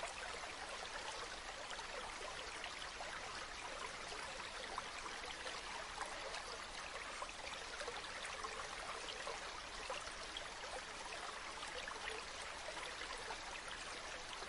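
Mountain waterfall: falling water rushing steadily, with a bright, hissing character and fine splashing throughout and little deep rumble.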